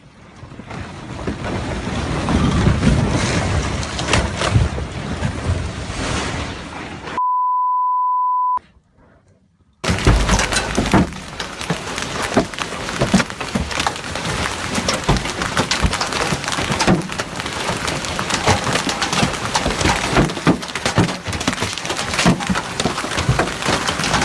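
Rockfall: a rumble of sliding stone that builds over the first few seconds, cut by a steady beep of about a second, then, after a short silence, a sudden loud onset of crashing and clattering rock with many sharp cracks.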